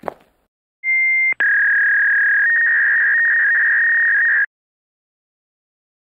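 Electronic beep tone: a short, higher beep about a second in, then a steady, slightly lower tone held for about three seconds that cuts off suddenly.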